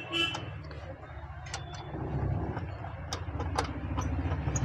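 A steady low engine hum that grows louder towards the end, with a few sharp clicks and taps over it.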